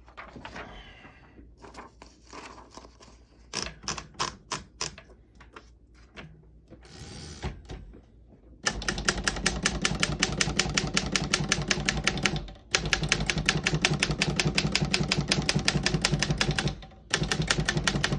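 1923 Royal 10 manual desktop typewriter: a few scattered mechanical clicks and handling sounds, then from about nine seconds in a fast, even run of type-bar keystrokes, broken twice by short pauses.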